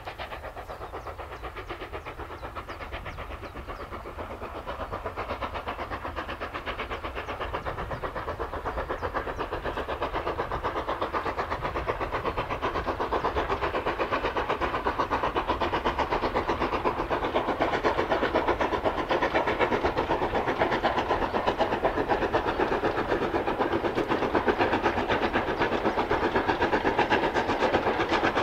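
LMS Stanier Black 5 4-6-0 steam locomotive running at speed with its train, a rapid even beat of exhaust growing steadily louder as it approaches.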